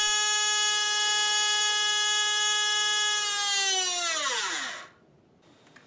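Brushless motor running at half throttle with a steady high whine, then winding down, the pitch falling from about three and a half seconds in until it stops just before five seconds in.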